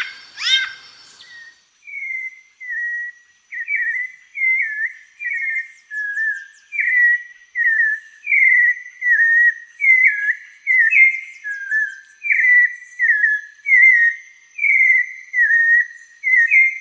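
A songbird singing a long, unbroken series of clear whistled notes, each short and sweeping, about one and a half a second, with a faint steady high tone behind.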